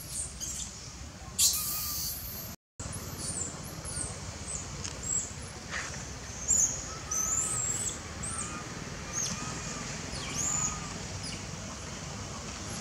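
Young macaque crying in repeated short, high-pitched squeals, over a steady low background rumble.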